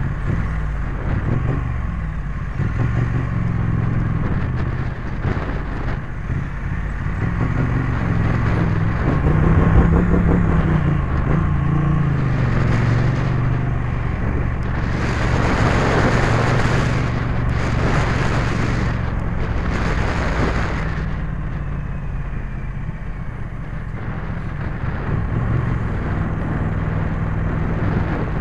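Triumph Street Twin's 900 cc parallel-twin engine being ridden, its pitch rising and falling with the throttle and climbing a little before the middle. A little past the middle come three bursts of rushing noise.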